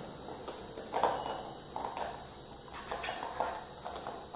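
Plastic toy cookware knocking and clattering: a small plastic spoon striking and stirring in a plastic toy pot on a toy stove, a handful of light, irregular knocks.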